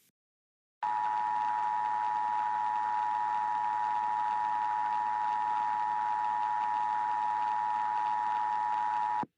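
Emergency Alert System attention signal: a steady two-tone alarm with a hiss of static under it. It starts about a second in and cuts off abruptly just before the end, about eight seconds long.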